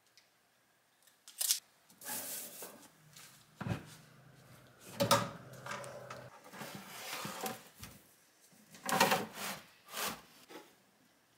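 Sheet-metal battery enclosure being slid down over a pack of LiFePO4 cells: a click, then rubbing and scraping of metal against the cells with several sharp knocks.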